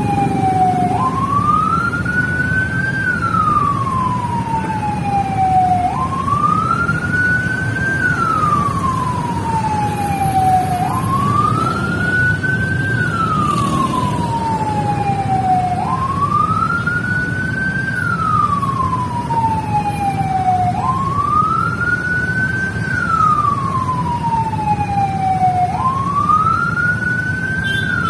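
Indonesian Independence Proclamation commemorative siren wailing in a slow repeating cycle about every five seconds: a quick jump up in pitch, a short rise, then a long falling glide, six times over. Motor traffic runs underneath.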